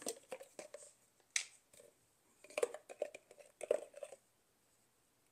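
Scattered light clicks, taps and brief rustles of kitchen items being handled, in two loose clusters with a quiet spell near the end.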